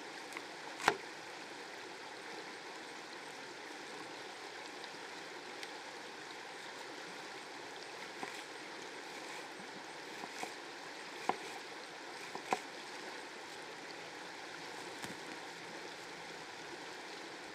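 Steady rushing of a stream, with a few sharp clicks and knocks over it. The loudest click comes about a second in, and a couple more follow past the middle.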